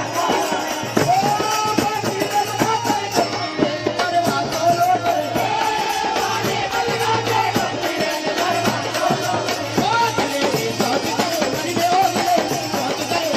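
Devotional folk music: a large hand-struck frame drum and a dholak keep up a steady rhythm, with a wavering melody rising and falling above them.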